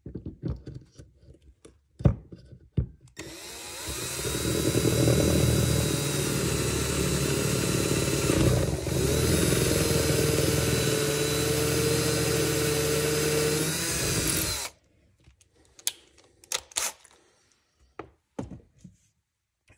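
Handheld power drill spinning a 3 mm carbide end mill through a jig bushing, milling a flat on a nitrided gas block. After a few handling clicks it runs steadily under load for about eleven seconds, with a brief dip about halfway, then stops suddenly, followed by a few more clicks.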